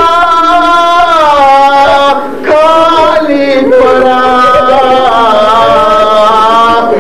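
Men chanting a Shia mourning lament (noha) into a microphone, in long held melodic lines with a short break for breath about two and a half seconds in.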